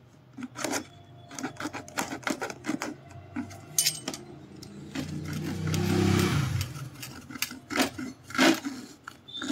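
Hacksaw blade, worked by hand, rasping back and forth through a plastic oil-bottle nozzle in short, irregular strokes. A louder, longer swell of sound comes about six seconds in.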